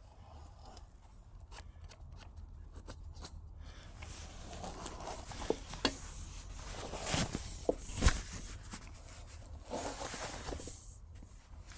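Flat rubber inner tube being pulled out from between a bicycle tire and rim: faint rubbing and rustling with scattered small clicks, and a couple of sharper knocks about seven and eight seconds in.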